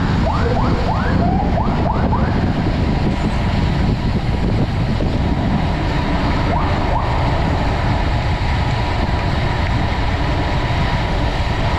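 Steady, loud wind rumble on a bike-mounted camera's microphone while riding, with a quick series of short rising chirps in the first two seconds and one more about seven seconds in.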